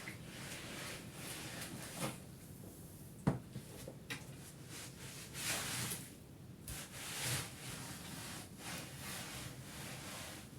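Irregular swishing rubs on a rug, with a sharp knock about three seconds in and a few lighter clicks.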